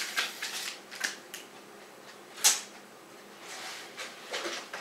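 Handling noises close to the microphone: short rustles and a few clicks, the loudest a single sharp click about two and a half seconds in.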